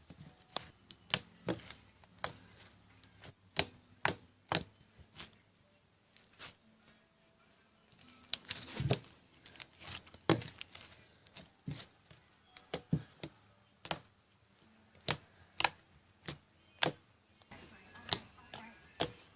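Slime being squeezed and poked, giving irregular sharp clicks and pops about once or twice a second, with a few longer squelches.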